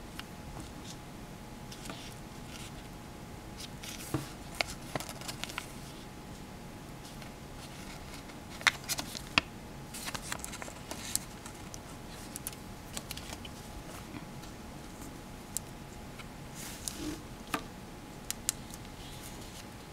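Irregular clicks, taps and rustles of a sheet of paper and alligator clips being handled, over a steady hiss with a faint steady tone underneath.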